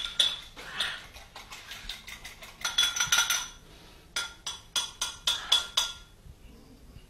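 Metal kitchen utensils and pans clinking and clattering at a stove, a series of irregular sharp clinks with a ringing metal clang about three seconds in. The clatter stops about six seconds in.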